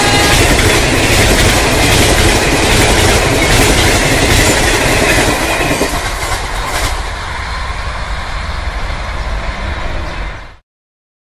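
Coaches of a Garib Rath express train rushing past at high speed, with wheels clattering over the rail joints. About six seconds in, the last coach goes by and the noise falls to a quieter, fading rumble. The sound cuts off abruptly shortly before the end.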